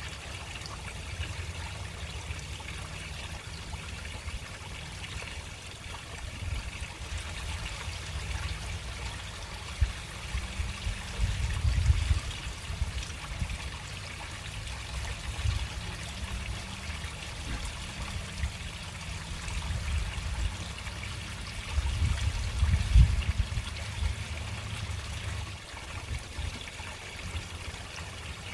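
Water running slowly through a storm drain, a steady trickle and splash. A low rumble swells up twice, once near the middle and again later.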